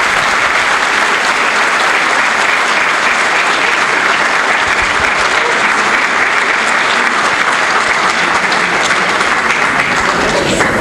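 Audience applauding steadily. The applause stops near the end.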